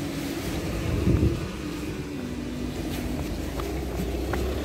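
Steady hum of a distant engine running under outdoor street noise.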